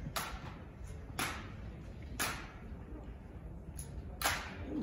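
Sharp slaps and smacks of hands on wooden drill rifles as they are spun and caught in a rifle drill routine: four crisp hits about a second apart, the last after a longer gap, each with a short echo.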